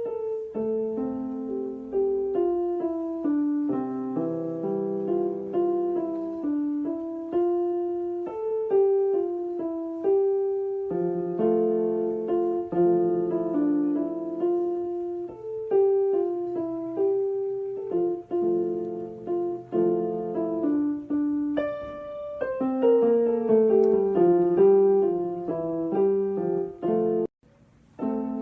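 Background piano music, a gentle melody of struck notes with chords beneath. It breaks off briefly near the end, then resumes.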